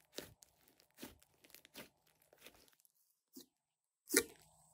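Hands squeezing and kneading a large lump of glossy slime, giving sticky crackling pops about once a second. A short quiet stretch comes before the loudest pop near the end.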